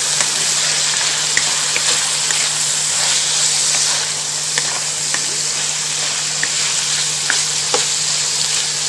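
Diced pork and broccoli stalks sizzling steadily in a hot pan while being stirred with a wooden spatula, with scattered light clicks of the spatula against the pan.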